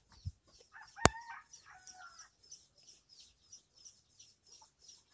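Faint bird calls: a high chirp repeated about three times a second throughout, and a longer call with a bending pitch about a second in. A single sharp click, the loudest sound, cuts across that call.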